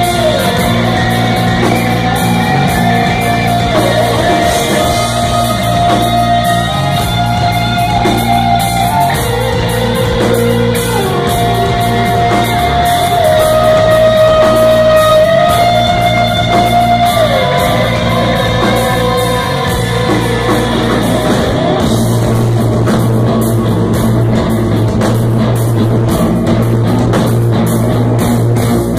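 Live post-metal band playing: electric guitars with long held melody notes that slide slowly from pitch to pitch, over bass and drums, heard from the crowd in a club hall.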